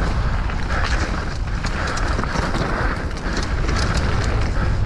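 Downhill mountain bike ridden down a trail: a steady low wind rumble on the microphone, tyre noise over the dirt, and dense clicking and rattling throughout.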